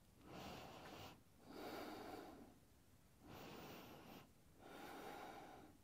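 A person's faint breathing: four soft breaths of about a second each, with short silences between.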